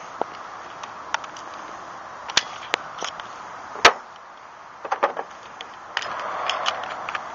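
Irregular sharp clicks and knocks of hand tools and a twist drill bit being picked up and handled among tools on a truck bed mat, the loudest knock a little before the middle, with a short stretch of rustling about six seconds in.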